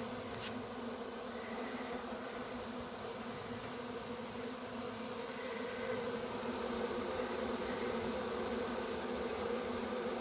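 Honey bee swarm buzzing in a steady hum around the hive as the bees stream in, getting a little louder about six seconds in.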